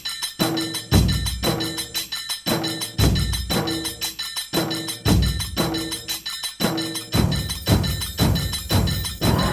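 Percussion-driven music with a fast, regular beat and a deep drum hit about every two seconds.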